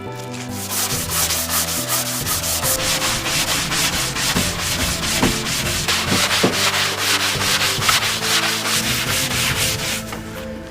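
Rapid, even rubbing or scraping strokes, several a second, typical of working a piece of puppet material by hand.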